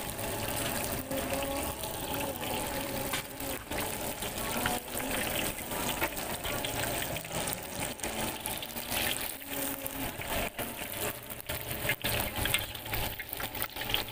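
Battered mackerel and shrimp deep-frying in two large woks of hot oil: a steady sizzle thick with small crackling pops.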